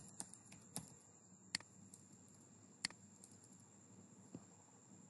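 Faint keystrokes on a computer keyboard, with two sharper clicks about a second and a half in and again near three seconds in.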